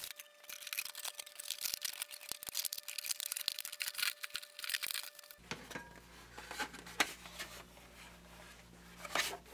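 Crackling, crinkling rustle of thin protective plastic film being peeled off a clear face-shield visor for about five seconds. It then gives way to sparser clicks and knocks as the plastic visor is handled and fitted to the face-shield headgear, over a low hum.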